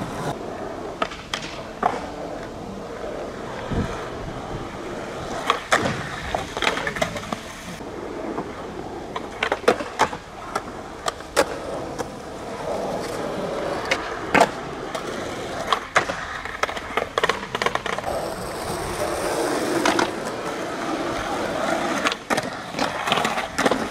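Skateboard wheels rolling on asphalt, broken by many sharp clacks of the board popping and landing as tricks are tried over and over.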